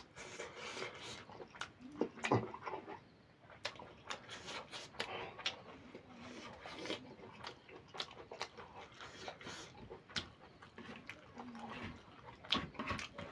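Close-miked eating: a person chewing and smacking on mouthfuls of curry and rice, with irregular wet clicks and smacks.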